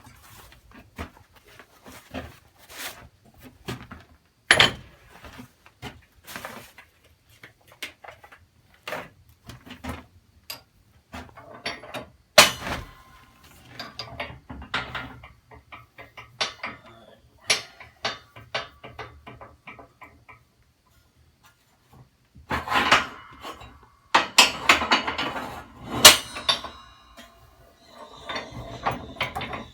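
Scattered sharp metallic clanks and clicks of steel parts being handled and shifted at a hydraulic shop press, with a busier, louder stretch of clattering about two-thirds of the way through.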